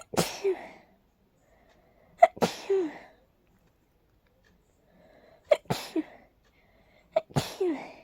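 A person sneezing four times in a row, roughly two seconds apart. Each sneeze is a sharp burst ending in a brief vocal sound that falls in pitch, with faint intakes of breath between. It is an allergy-driven sneezing fit.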